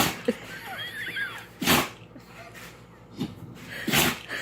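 A pet sneezing three times in short, sharp bursts: one right at the start, one a little under two seconds in, and one near the end.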